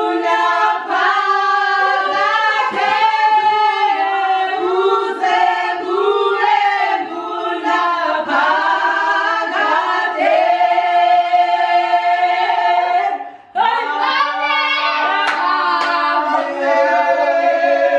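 A small group of women singing a church worship song together, with no instruments, and some hand clapping. The singing breaks off briefly about two-thirds of the way through, then starts again.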